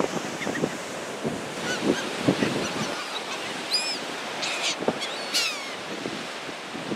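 Seagulls giving several short calls, most of them in the second half, over a steady wash of surf and wind.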